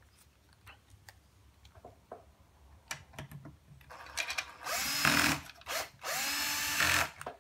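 Small cordless drill-driver on its lowest torque setting driving screws into a thin aluminium bracket, in two short runs about four and six seconds in, each rising in pitch as the motor spins up. Faint handling clicks come before them.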